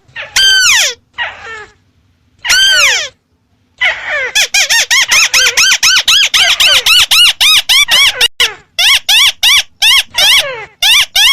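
White-browed crake calling: a loud series of short notes, each rising and falling in pitch. There are a few separate notes and a short pause in the first four seconds, then a fast run of about four to five notes a second.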